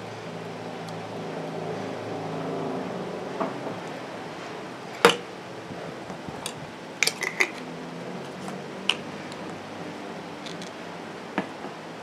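Butterfly knife clinking against a glass bottle as it goes into the bottle and the bottle and cap are handled: a scatter of sharp clinks and taps, the loudest about five seconds in and a quick run of them around seven seconds. A steady low hum lies underneath.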